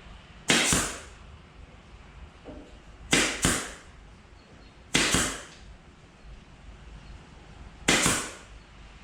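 Pneumatic pin nailer firing five times, each a sharp pop followed by a short hiss of air: single shots spaced a few seconds apart and one quick double shot about three seconds in.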